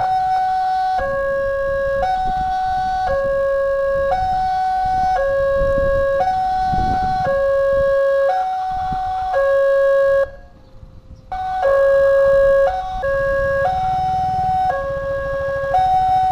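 Railway level-crossing warning alarm: an electronic two-tone signal switching between a lower and a higher tone about once a second, warning of an approaching train while the barrier comes down. It cuts out for about a second in the middle, and engine rumble sits low underneath near the end.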